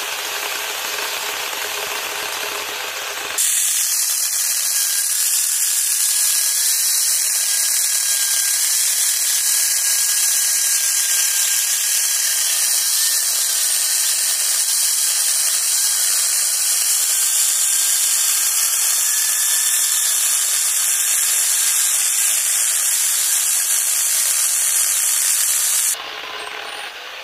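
Electric angle grinder fitted with a chainsaw adapter, its chain cutting through a log. From about three seconds in until near the end the sound is sped up to double speed, so it turns into a louder, high-pitched hissing whine, then drops back to normal pitch.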